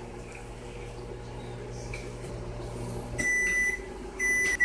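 Microwave oven running with a steady hum, which cuts off about three seconds in as the heating cycle ends, followed by two high-pitched end-of-cycle beeps.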